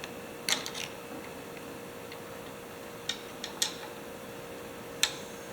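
Scattered sharp clicks and taps of small metal parts and hand tools being handled, about half a dozen in all, over a faint steady hum.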